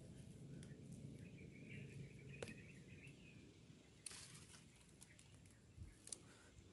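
Near silence: faint outdoor ambience with a few soft rustles and ticks of twigs and leaves, and a faint, wavering high bird call starting about a second in and lasting about two seconds.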